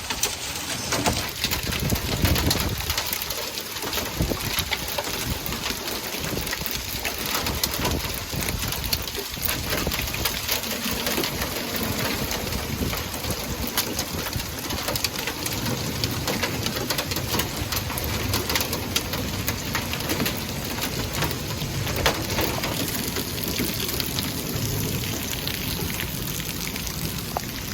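Small hailstones and rain pelting down and bouncing off hard surfaces: a dense, steady patter of sharp little clicks over the hiss of the rain.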